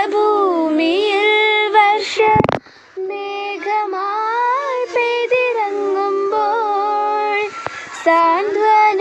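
Young girls singing a Malayalam prayer song together, in long held, wavering notes between lines. About two and a half seconds in the singing breaks off briefly with a short pop, then resumes.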